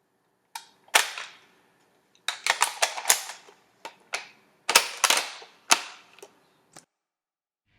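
Airsoft gun being reloaded and worked by hand: a string of sharp mechanical clicks and clacks, in uneven groups with short pauses between.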